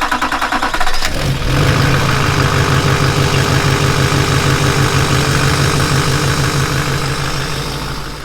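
Duramax LMM 6.6-litre V8 turbo-diesel cranking for about a second, then catching and settling into a steady idle, which fades out near the end.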